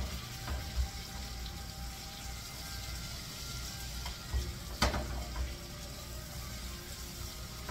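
Butter sizzling steadily in a frying pan around pork chops as they are basted, with a spoon knocking against the pan a few times, loudest about five seconds in.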